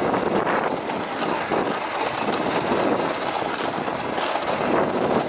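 A quad bike rolling in neutral over a grassy track while a team of sled dogs pulls it, giving a steady rattle and rumble of the tyres and frame.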